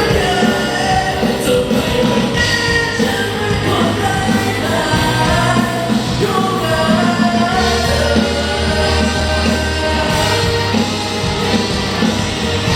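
Live band music in a rock style with a singer, loud and continuous with a steady beat and bass.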